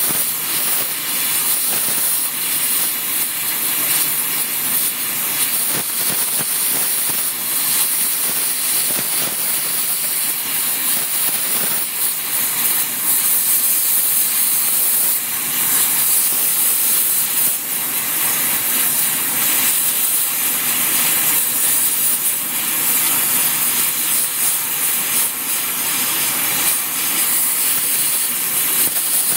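Gas brazing torch flame hissing steadily as it heats the edge of a steel hammer while TufCote brazing alloy is laid on, with a few faint crackles.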